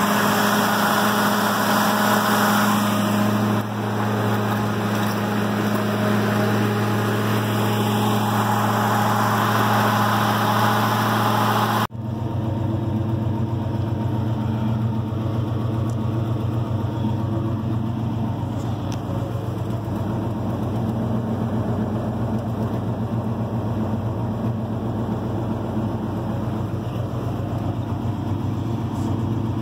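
1980 Chevrolet 454 big-block V8 idling steadily shortly after a frigid cold start. About twelve seconds in the sound breaks off for an instant and carries on more muffled, heard from inside the cab.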